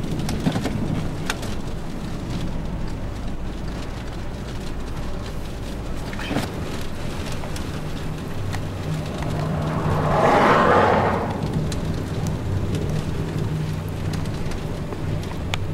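Storm-force inflow wind rushing and buffeting a moving car, heard from inside the cabin over a steady low engine and road hum, with scattered ticks of rain or grit striking the car. About ten seconds in a louder gust swells and fades.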